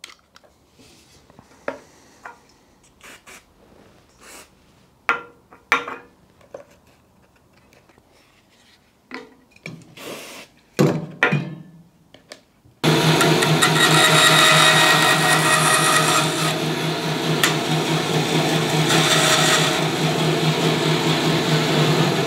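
A utility knife scraping and nicking the fluffy edges of thin plywood in short, scattered strokes. About 13 s in, an electric workshop machine switches on suddenly and keeps running with a steady hum and whir.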